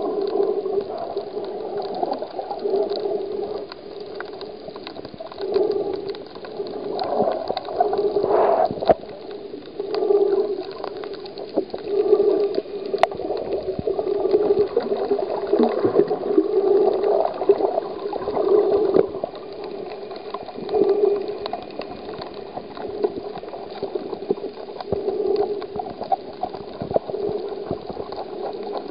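Muffled underwater sound picked up by a camera held just below the surface while snorkeling: water noise that swells and fades every few seconds, with scattered sharp clicks.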